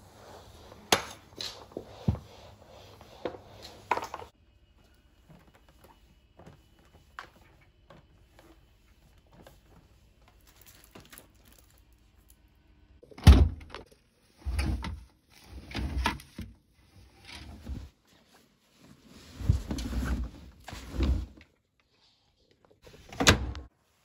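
A string mop swishing over a hard floor with a few sharp knocks. After a quiet spell, a series of loud dull thumps and knocks.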